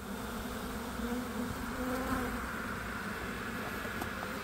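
A swarm of honeybees buzzing in flight as it settles onto a hive box: a steady hum of many bees, slightly louder about a second in.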